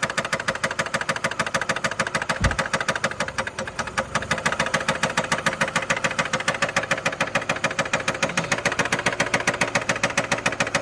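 2012 Nissan Altima's 2.5-litre four-cylinder engine idling with a steady, rapid knock (thak-thak), which the owner suspects is a loose connecting rod bearing.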